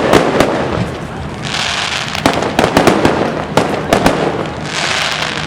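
Fireworks display: clusters of sharp bangs from bursting shells, with stretches of high crackling hiss between them, about two seconds in and again near the end.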